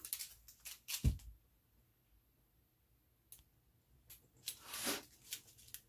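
Small plastic bags of diamond painting drills being handled: scattered clicks and crinkles of plastic, with a low thump about a second in and a short crinkling rustle near the end.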